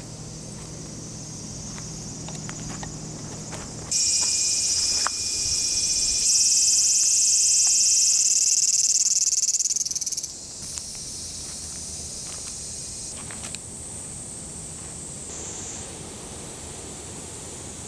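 An insect's loud, high buzzing call starts abruptly about four seconds in, grows louder around six seconds and fades out near ten seconds. It sits over a steady background of other insects.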